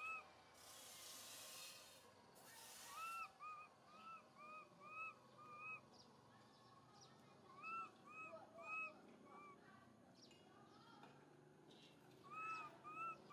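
Baby macaque giving short, arched, high-pitched coo calls in three bouts of quick repeats: an infant's contact call for its mother. A noisy hiss sounds in the first couple of seconds.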